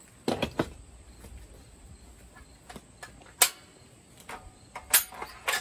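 A handful of sharp knocks and clicks from hands working the jaws of a Rockwell jaw horse vise clamping a wooden carving, the loudest about three and a half seconds in.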